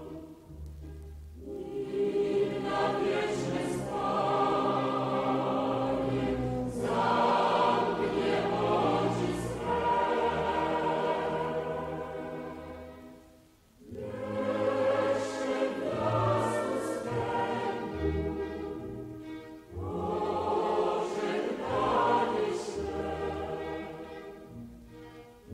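Music: a choir singing with instrumental accompaniment and a low bass line, in long phrases with a brief pause about fourteen seconds in.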